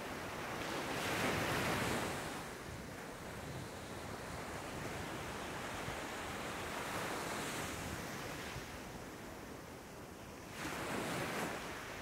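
Small surf waves breaking and washing up a sandy beach. A louder breaker comes about a second in and another near the end, with a steady softer wash in between.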